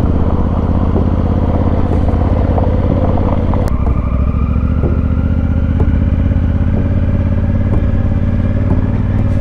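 Honda Africa Twin motorcycle engine running steadily under way, a continuous loud engine drone.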